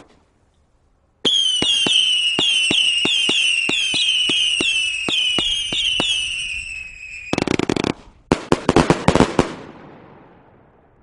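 A 1.3G firework cake firing a rapid volley of whistling shots, about three a second. Each shot is a sharp launch report followed by a high whistle that drops a little in pitch. About seven seconds in, the whistles stop and give way to a dense burst of crackling, then a quick string of sharp cracks and pops that die away.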